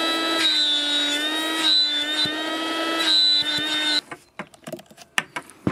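Parkside PKA 20-Li A1 cordless air pump running in its air-pump (inflator) mode: a steady motor whine whose pitch wavers slightly, cut off suddenly about four seconds in. After it stops come a few clicks and knocks from the hose being handled.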